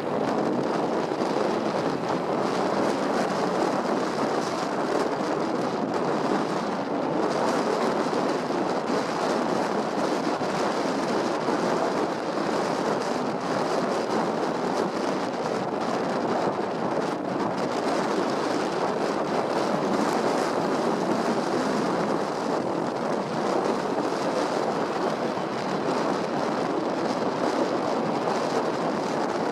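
Steady rushing noise of a moving vehicle with wind on the microphone, even throughout with no distinct events.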